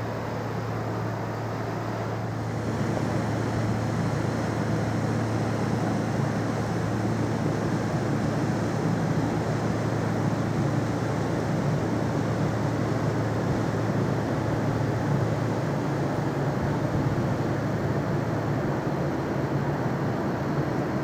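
A passing ferry's engines rumbling steadily with a constant low hum, growing a little louder about two seconds in.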